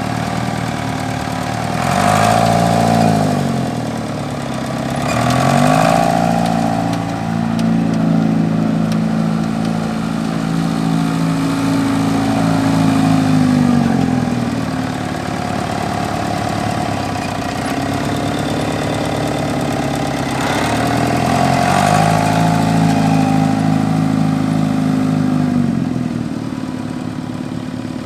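Marshall 602 tractor engine revved up and down with the throttle. It gives two short blips near the start, is held at higher revs for several seconds, drops back to idle, then is revved up and held again before settling back down near the end.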